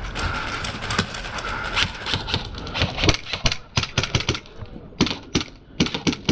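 Airsoft guns firing: a rapid run of sharp clicking shots, coming in quick irregular volleys that grow denser and sharper from about three seconds in.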